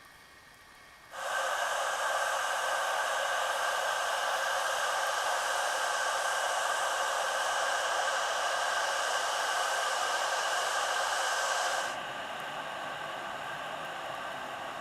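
Proctor Silex electric kettle heating water, a steady hiss that starts abruptly about a second in and drops to a quieter, lower hiss near the end.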